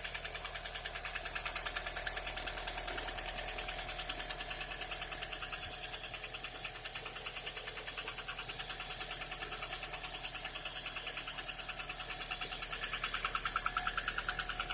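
Mitsubishi Lancer X 4A92 1.6-litre four-cylinder engine running with a fast, even knock, growing louder near the end. The knock is piston knock from cylinder one, whose piston skirt is scuffed and whose compression is low.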